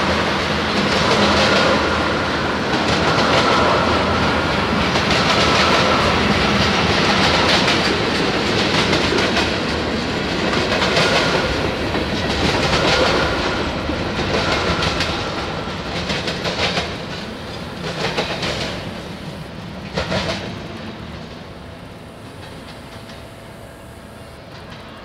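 Freight train tank cars and boxcars rolling past on the rails, their wheels clacking over the rail joints. In the last third a few separate clacks stand out, and then the sound fades as the end of the train goes by.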